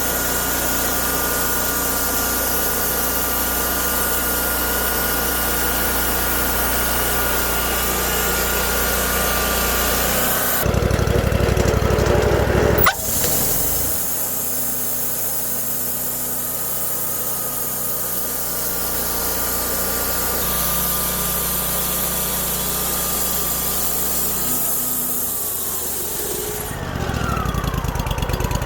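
Wood-Mizer LT40 portable band sawmill running steadily. About ten seconds in, and again near the end, the sound changes and grows louder for a couple of seconds, and a sharp click comes just before 13 s.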